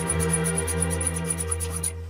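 Background music: a held low note with overtones under a fast, even high ticking, which stops near the end.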